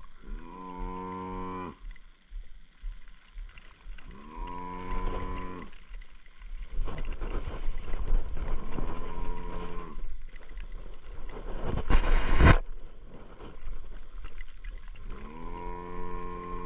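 A wounded Cape buffalo bull bellowing four times, long drawn-out calls a few seconds apart: the death bellow of a bull lying down and dying from its wounds. A brief, loud rush of noise on the microphone about twelve seconds in.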